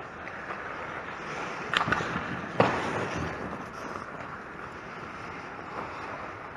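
Ice hockey skate blades scraping and carving on rink ice. About two seconds in there are two sharp knocks a little under a second apart, the second the loudest, typical of a puck or stick striking.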